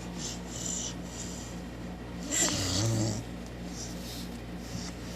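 Cane Corso puppy snoring in his sleep, a breathy snore with each breath about once a second, the loudest and longest snore about two and a half seconds in.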